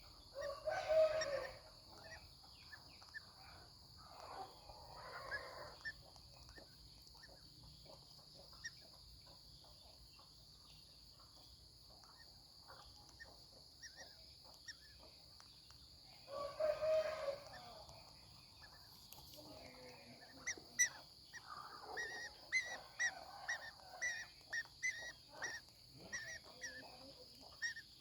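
Green-cheeked conure chick calling with harsh raspy squawks, two loud ones about a second in and midway, then a run of short chirps and clicks near the end.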